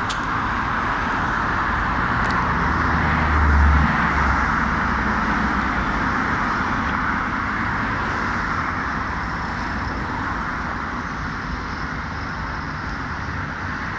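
Road traffic on a multi-lane road: a steady hiss of cars and tyres driving past, with one vehicle passing closer and louder, with a deep rumble, about three to four seconds in.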